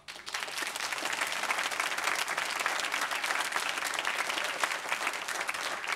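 Studio audience applauding. It starts suddenly, swells within the first second and holds steady.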